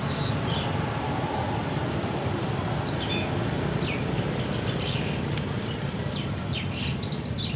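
Steady low rumble of a vehicle engine and road traffic, with short high chirps scattered through it.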